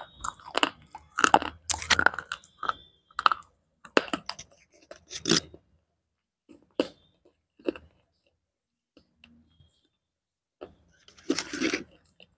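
Close-miked crunching and chewing of slate pencil: a dense run of crisp crunches and clicks for the first five seconds or so, then a few isolated crunches, a pause, and another burst of crunching near the end.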